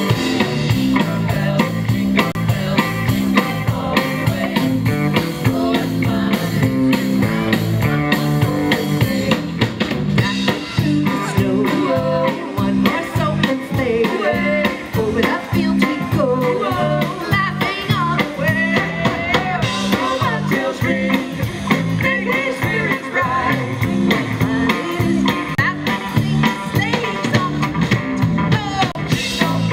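Live rock band playing: a drum kit keeping a steady beat and an electric guitar, with a woman singing over them through the PA.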